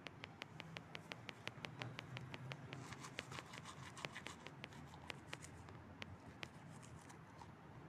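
Faint, rapid clicking, several clicks a second, that thins out near the end, over a steady low hum.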